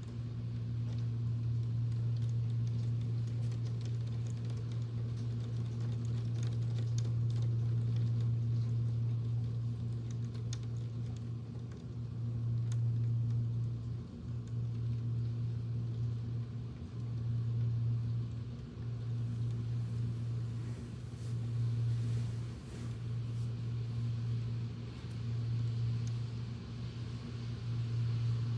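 Electric fan running with a steady low hum that dips briefly about every two seconds in the second half, over faint scattered ticks of rain.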